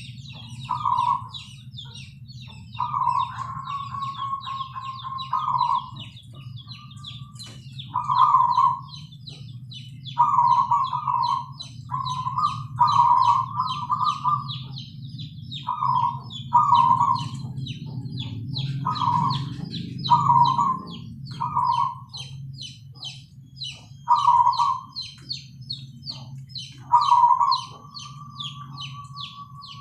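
Zebra doves (perkutut) cooing in repeated short phrases of rolling notes, a few ending in a long held note, with continuous rapid higher-pitched chirping of small birds throughout and a steady low hum underneath.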